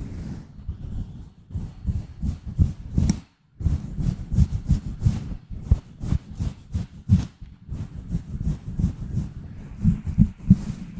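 Gentle scratching and rubbing directly on an ASMR microphone: a fast, uneven run of scratchy strokes carrying a heavy low rumble from the contact. It drops out for a moment about three and a half seconds in.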